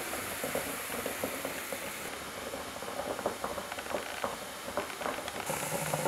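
Water simmering in a saucepan on a gas hob with a tin can of wax melting in it, making a steady bubbling hiss full of small irregular crackles and ticks.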